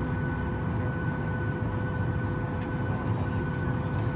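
Steady airliner cabin noise inside a Boeing 737-900ER: a constant low rumble with a few steady whining tones on top.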